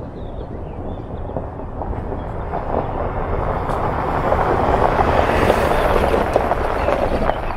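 A Land Rover Defender towing a caravan driving past on a gravel track, engine running and tyres on loose stones, growing louder to a peak about five seconds in and then fading.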